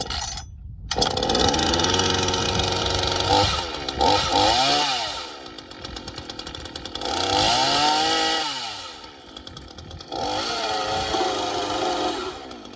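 Craftsman S145 14-inch 42cc two-stroke chainsaw, pull-started cold on choke, catches about a second in and keeps running. It is revved up and back down twice, idling roughly in between, then held at a higher steady speed near the end.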